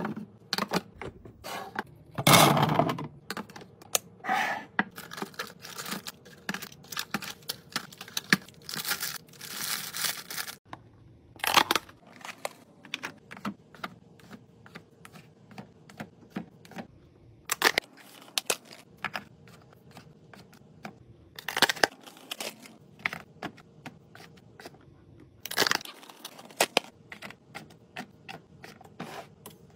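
Packaging and containers handled while restocking a fridge: wrappers tearing and crinkling in a few longer rustles, among many quick clicks and knocks of plastic and glass items set down.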